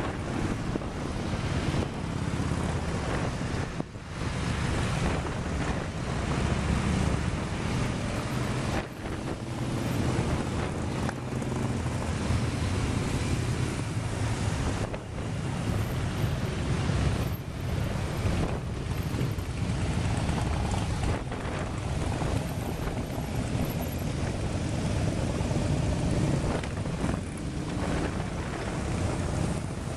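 A continuous procession of cruiser and touring motorcycles riding past, their engines running together in a steady low sound that swells and dips as bikes go by, with wind noise on the microphone.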